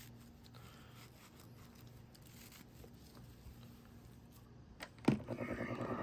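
Faint rustling of hands smoothing and pulling a crocheted raffia panel over a low hum; about five seconds in, a click and then a steam iron starts shooting steam with a loud, rapidly pulsing hiss.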